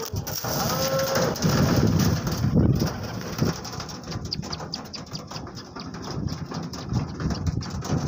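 Domestic pigeons: a flock's wings flapping as they fly in and land, loudest from about one and a half to three seconds in, with a short coo about a second in. After that come many quick light taps as the birds peck grain off a plastic tarp.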